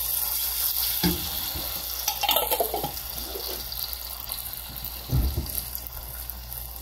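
Tomato sauce sizzling steadily in a steel pot, with a few knocks and clatters of kitchen utensils, the loudest about five seconds in.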